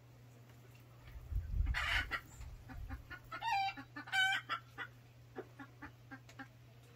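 Chickens clucking, with two loud wavering squawks about halfway through and scattered soft clucks after them. A brief rustling thump comes about a second in.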